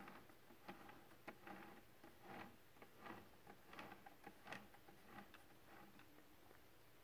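Near silence with faint, irregular ticking clicks, about one or two a second.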